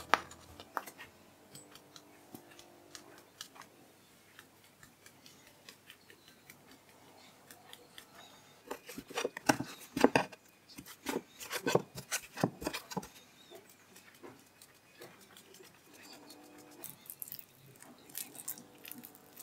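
Eggplant slices being picked up, turned over and set back down on a wooden cutting board: a run of soft taps and slaps, thickest in the middle, with fainter handling of minced meat near the end.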